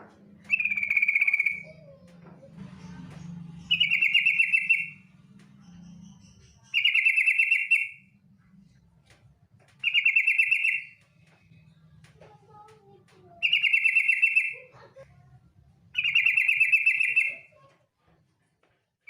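Female yellow-vented bulbul (trucukan) giving its fast rattling trill call, six calls about a second long, repeated about every three seconds.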